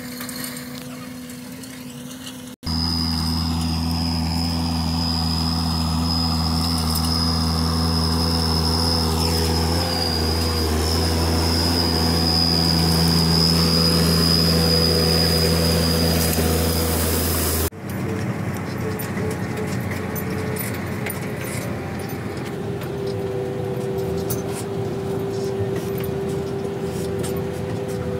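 Lamborghini R7.210 tractor's six-cylinder diesel engine running at steady working revs. The sound changes suddenly twice as the shots cut: first from the field, then loud and close beside the tractor with a high steady whine over the engine, then the in-cab sound.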